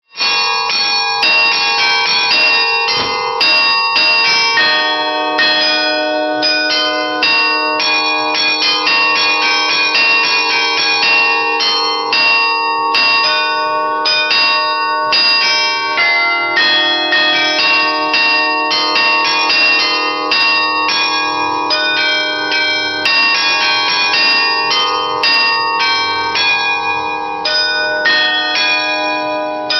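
Carillon bells playing a tune: quick strikes, several a second, each bell ringing on so the notes overlap.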